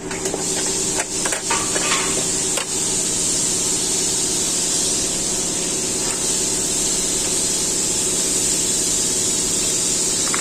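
Steady machine hum with a strong high hiss, and a few light clicks and taps in the first three seconds.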